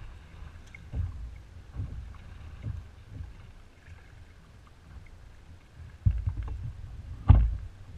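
Strong wind buffeting the microphone in repeated deep gusts, and choppy water lapping at a kayak hull, with a sharper thump a little before the end.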